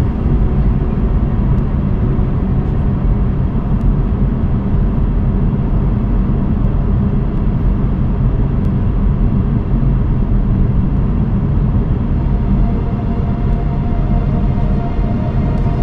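A car driving at steady speed: a continuous low rumble of tyres on the road and the engine, with no change in pace.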